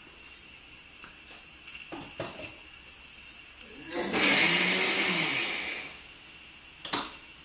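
Electric mixer grinder run in one short pulse to grind grated coconut coarsely. The motor starts suddenly about four seconds in, runs loudly for a second or so with its pitch rising, then winds down and fades. A short knock follows near the end.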